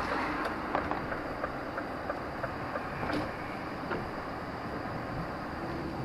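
Steady running noise of a moving vehicle heard from inside, with a light regular ticking about three times a second that stops about halfway through.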